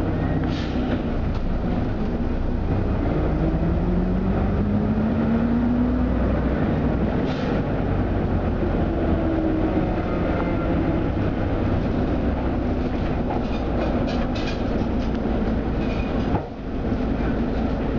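Jelcz 120M/2 LPG city bus heard from inside the passenger cabin: a steady engine drone and road rumble, with a whine rising in pitch as the bus gathers speed a few seconds in. Light rattles and clicks from the bodywork come near the end.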